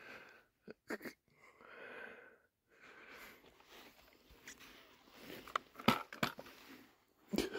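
A person breathing heavily, with scattered footsteps and sharp cracks, like twigs snapping, while walking up through brush. The loudest cracks come about six seconds in and near the end.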